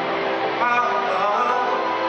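Live concert music heard from the audience in an arena: a male R&B singer singing over the band, his voice entering about half a second in.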